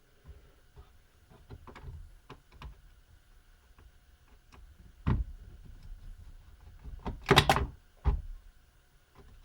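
Small clicks and taps of a screwdriver and parts on a laptop's plastic case, as a tiny screw is worked on. There is a sharp knock about five seconds in and a cluster of louder clicks near the end.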